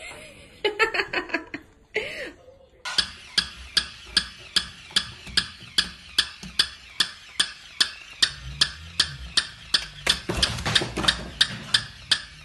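Steady, even ticking: sharp clicks about three or four a second, starting about three seconds in after a few irregular softer sounds.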